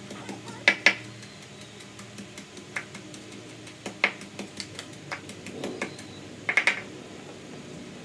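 Wooden pestle striking cassava leaves in a wooden mortar, pounded only coarsely: a few sharp knocks, a pair about a second in, single strikes near three and four seconds, and a quick run of three near the end.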